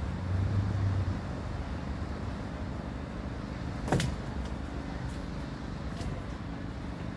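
Steady low outdoor rumble, with one sharp click about four seconds in.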